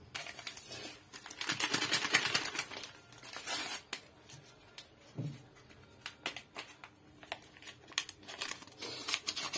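Small paper sachets of baking powder crinkling as they are handled, torn open and shaken out into a mixing bowl, in irregular rustling bursts with small sharp clicks.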